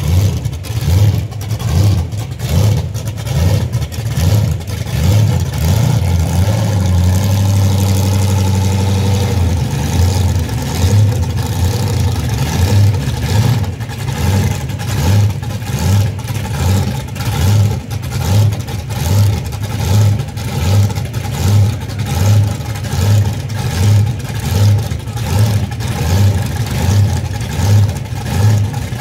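An Edsel drag car's engine idling with a lumpy, pulsing beat of a little over one surge a second. For a few seconds in the middle it holds steadier and a little higher.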